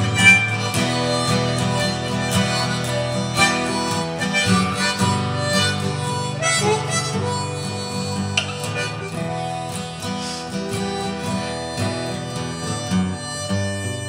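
Harmonica playing a melody over acoustic guitar accompaniment.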